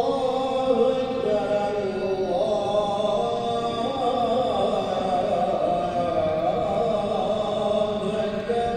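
A man's voice chanting melodically in a mosque, holding long notes that step slowly up and down. It is typical of the muezzin's chant that follows the Friday sermon.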